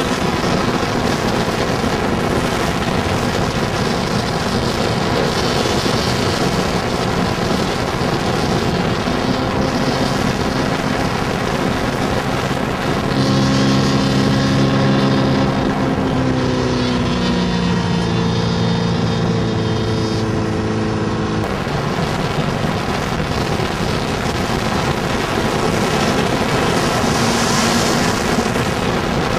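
An RC catamaran speedboat's RCMK S254 Evo two-stroke gas engine running at high revs. Partway through, its pitch drops as the throttle is backed off, then the sound cuts off abruptly.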